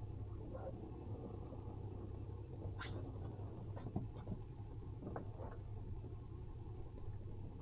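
A steady low rumble with a few brief squeaks and scrapes, at about three, four and five seconds in, as two boats lie tied together with a fender between the hulls.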